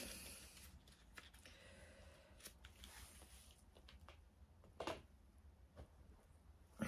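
Near silence: room tone with faint rustling and a few soft clicks as small items are handled, the loudest click about five seconds in.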